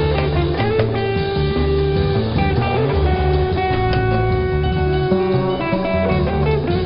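Live small-band music with plucked strings and a cello playing held notes over a moving bass line.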